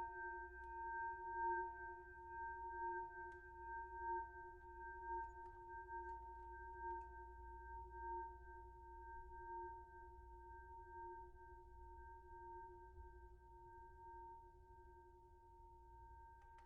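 Boxing ring bell ringing out after a strike: a long, steady ringing with a slow wavering pulse, fading gradually.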